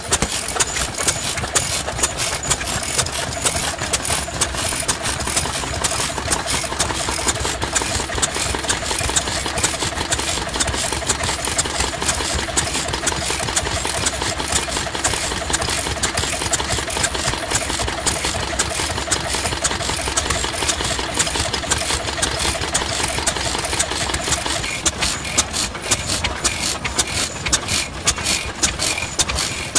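Vintage International Harvester (IHC) stationary oil engine with a large flywheel running steadily, a fast, even beat of firing strokes. About three-quarters of the way through the sound changes to another old stationary engine running.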